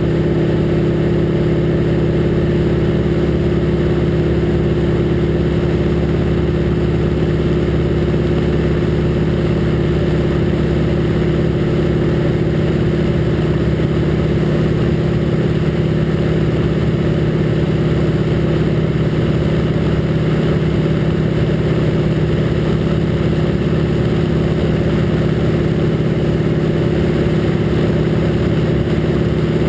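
North American Harvard II's Pratt & Whitney R-1340 Wasp radial engine and propeller running steadily in flight, heard from inside the cockpit as a constant drone.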